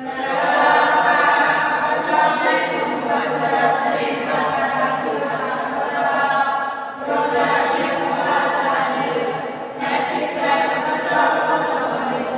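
A choir or congregation singing unaccompanied in long sung phrases, with short breaks for breath about seven and ten seconds in. This is sung liturgy at the communion rite of a Mass, just after the priest's invitation to communion.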